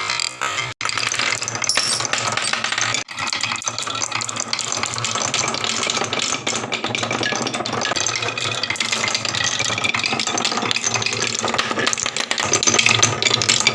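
Dense, continuous wooden clattering and rattling of a HABA marble-run slope track as pieces roll and tumble down it, broken twice by a momentary gap near the start.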